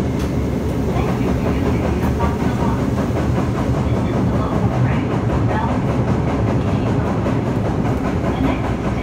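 Toei 5300 series subway train running, heard from inside the car: a steady rumble of wheels on rail with some clickety-clack.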